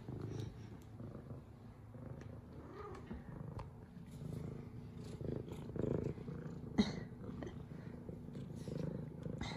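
F2 Savannah cat purring steadily as she is stroked and rubs against a hand. A single sharp click comes about two-thirds of the way through.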